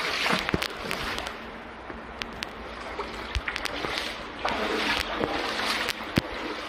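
Wading through water in a brick culvert: the water sloshes and splashes in surges with each stride, with sharp clicks throughout.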